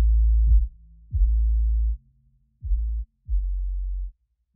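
Electronic outro music for a news logo: a series of deep bass hits, each opening with a quick downward pitch drop and then held as a low hum. There are about five hits, and they grow quieter toward the end.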